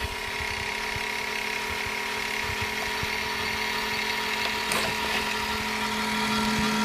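Steady drone of an airliner cabin: engine and air-system noise with several steady hum tones, growing slightly louder, and one faint tap about four and a half seconds in.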